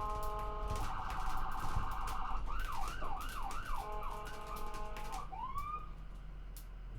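Ambulance's electronic siren switching between patterns: steady and fast-pulsing tones, then a quick yelp sweeping up and down about three times a second, then a last rising whoop that stops about six seconds in. A low vehicle rumble runs underneath.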